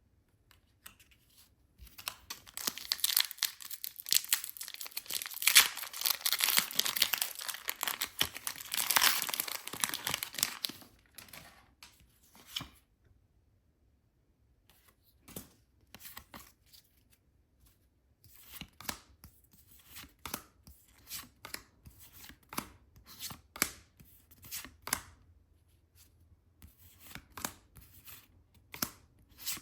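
Plastic packaging being torn and crinkled open for several seconds, then a string of short crisp snaps and rustles as the contents are handled.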